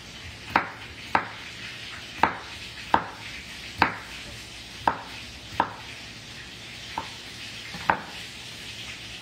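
A large kitchen knife slicing a cucumber on a wooden cutting board, knocking the board about nine times at an uneven pace. Behind it is a steady sizzle of meat frying in a pan.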